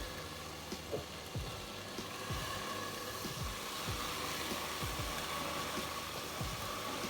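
Tomato paste sizzling in hot oil in a pot, a steady hiss with a few soft knocks.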